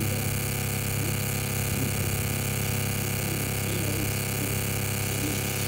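Laser engraving machine running, a steady machine hum with fan noise.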